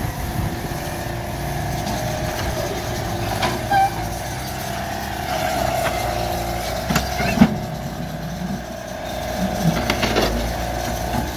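Construction machine's diesel engine running steadily, with a few short, sharp knocks; the loudest comes about seven seconds in.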